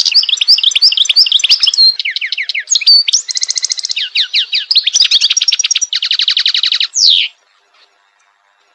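European goldfinch singing a fast, continuous song of twittering trills and quick sweeping notes, which breaks off about seven seconds in.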